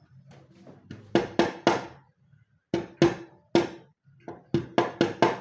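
Hammer blows: about a dozen sharp strikes in three quick bursts (three, three, then six), each ringing briefly.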